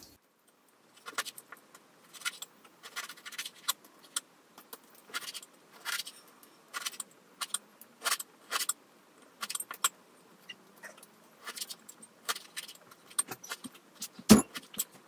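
Kitchen knife chopping cooked chicken giblets on a cutting board: a run of irregular short taps, about two to three a second, with one louder knock near the end.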